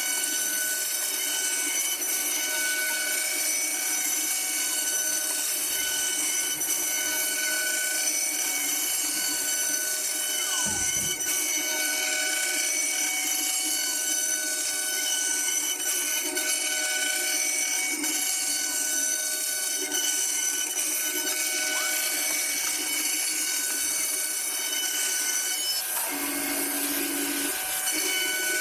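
CNC router spindle running steadily, a continuous machine whine with several high tones over a noisy hiss.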